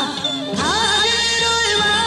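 Korean folk singing with strong vibrato. A new sung phrase comes in about half a second in, over a low held tone.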